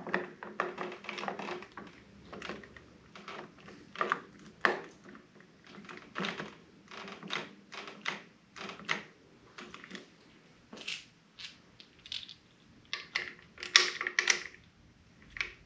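Irregular small clicks and taps of the motorcycle's right handlebar control housing and brake lever being handled and fitted onto the handlebar, plastic and metal parts knocking together, with a quicker, louder run of clicks near the end.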